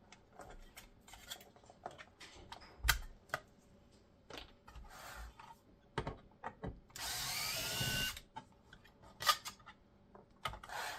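Scattered clicks and taps of plastic and small metal parts being handled, then a small electric screwdriver running for just over a second, about seven seconds in, with its pitch rising as it spins.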